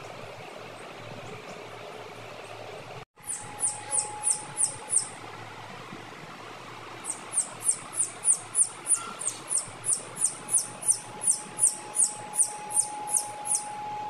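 Newly hatched chicks peeping: short, high, falling peeps about three a second, a few beginning just after a brief dropout about three seconds in, then a longer steady run after a short pause.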